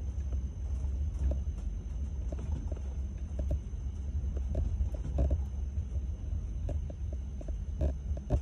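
Train heard from inside the driver's cab: a steady low rumble of running along the track, with irregular sharp clicks as the wheels pass over rail joints and pointwork. A faint steady high whine sits underneath.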